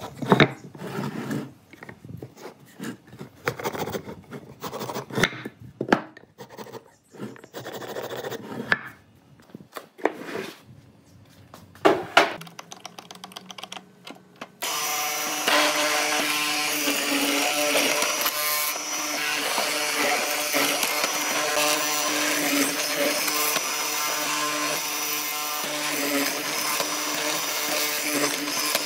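A small hand tool scraping along a hardwood beam in quick, uneven strokes, with a few sharp knocks. About halfway through, a benchtop hollow-chisel mortiser's motor starts running steadily as its square chisel cuts a mortise in the beam.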